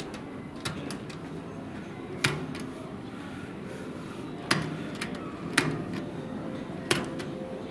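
Push buttons on a train departure board control panel being pressed one at a time: about half a dozen sharp separate clicks over a steady room hum.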